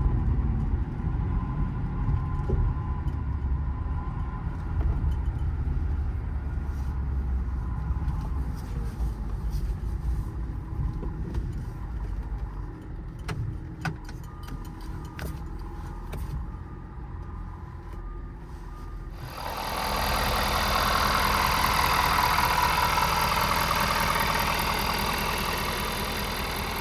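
Ford F-550's 6.7 Power Stroke diesel heard from inside the cab while driving, a low steady rumble that eases off as the truck slows, with a few sharp clicks partway through. About two-thirds of the way in the sound changes abruptly to a louder, hissier steady engine noise.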